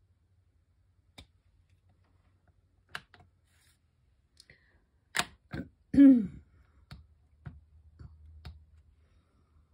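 Clicks and knocks of a plastic Archival Ink pad case being opened and handled on a craft desk, the loudest a hollow knock about six seconds in, then a few lighter taps as the ink pad is dabbed onto a clear acrylic number stamp.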